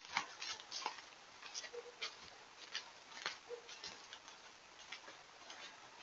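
A deer moving through leaf litter and undergrowth close to the trail camera: irregular crackles and snaps, densest in the first second and growing sparser, over the camera microphone's steady hiss.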